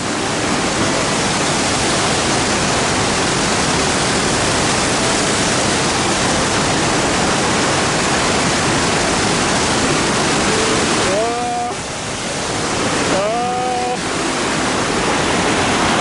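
A broad waterfall rushing loudly and steadily. Near the end a voice sounds briefly, twice, over it.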